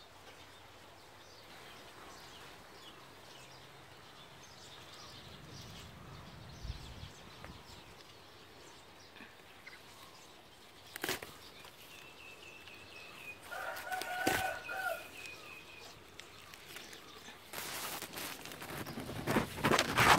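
Quiet garden ambience with small birds chirping, and a rooster crowing once about two-thirds of the way through. Over the last few seconds, leaves rustle and scrape loudly against the phone's microphone as it pushes into the plants.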